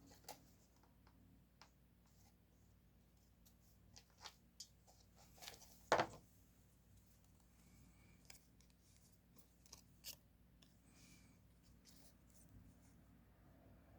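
Quiet, scattered clicks and taps of stationery being handled on a desk while decorating a diary, with one louder knock about six seconds in.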